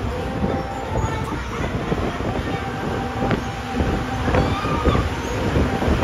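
Roller coaster train running along its steel track: a steady rumble and rattle from the wheels, with several sharp knocks as the cars run through the course.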